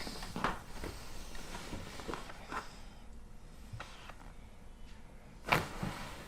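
Quiet rustling and small clicks of a chiropractic adjustment, then one sharp crack about five and a half seconds in, the loudest sound.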